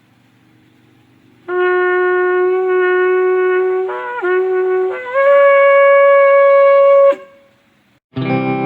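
Shofar blown: a long steady note, a brief wavering break and a short note, then a longer, higher-pitched note that cuts off sharply. Guitar music begins near the end.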